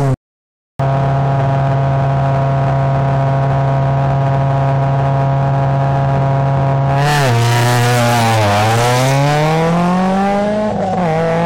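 Rally car engine held at steady high revs on the start line, then about seven seconds in the car launches. The revs drop, climb, and dip again at a gear change as it accelerates away, with a rush of tyre noise. A moment of dead silence just after the start.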